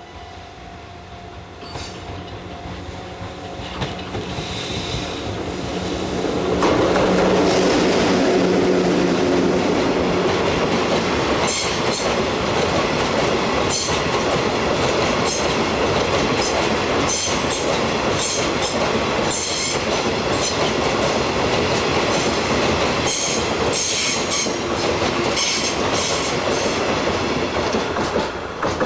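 A freight train passing close by. The locomotive approaches and goes by, loudest a few seconds in. A long string of freight wagons then rolls past, with a rhythmic clickety-clack of wheels over rail joints and some high-pitched wheel squeal, until the sound cuts off at the end.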